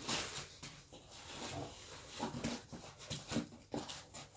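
Rustling, soft taps and scrapes of a package and its contents being handled, in short irregular bursts.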